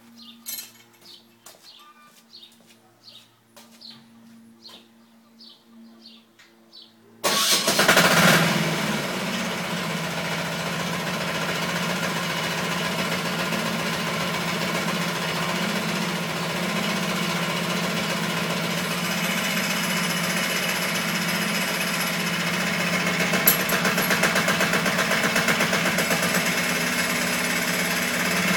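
Diesel engine of an MF 70 two-wheel tractor starting suddenly about seven seconds in, then running steadily. Before it starts there is only a faint background with short high chirps.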